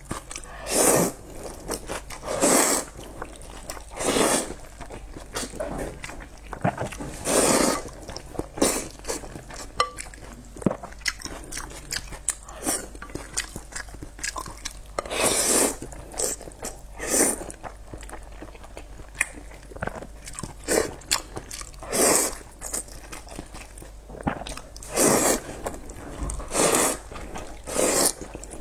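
Close-miked eating of pork noodles: repeated loud bites and chewing, in short noisy bursts every second or two.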